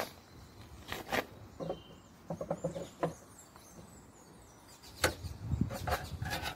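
Scattered short knocks and clicks of handling, over faint outdoor ambience with thin bird chirps about two to four seconds in.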